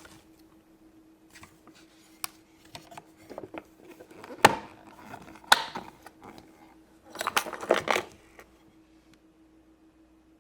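Handling noise from small toys and their packaging: scattered sharp clicks and taps, with a short burst of clicking and rustling about seven seconds in, over a faint steady hum.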